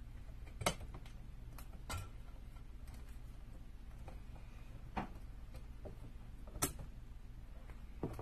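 Handling noise from wire being bent and fitted at the top of a wooden picture-frame lantern: about five sharp, separate clicks and taps a second or so apart, over a steady low hum.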